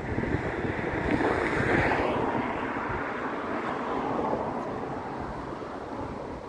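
Wind gusting across the microphone, with an uneven low rumble, swelling a little about one to two seconds in.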